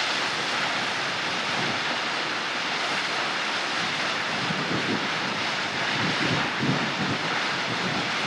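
Steady rushing of a man-made waterfall, water cascading over rock ledges into a pool, with some low wind rumble on the microphone in the second half.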